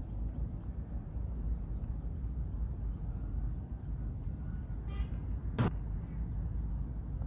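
Lakeside outdoor ambience: a steady low rumble, with faint high chirps repeating three or four times a second and a single sharp click about five and a half seconds in.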